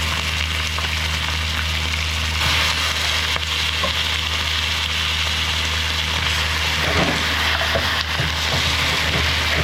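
Blanched pork ribs sizzling hard in a pan of hot oil and caramelized sugar, a steady frying hiss.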